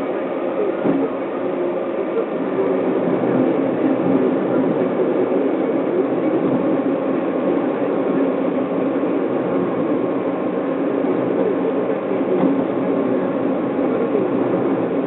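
Steady driving noise inside a moving car's cabin: engine and tyre rumble on asphalt at road speed.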